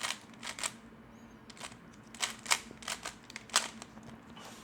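Scattered sharp plastic clicks at uneven spacing, a few per second: a 3x3 Rubik's cube being turned and handled.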